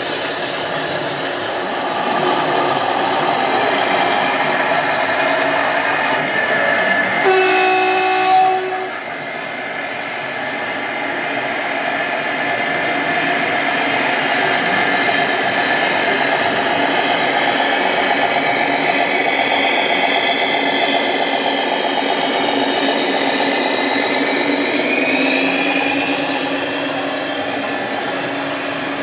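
Radio-controlled scale trucks running, their sound modules playing diesel engine noise, with a horn blast lasting about a second and a half about seven seconds in.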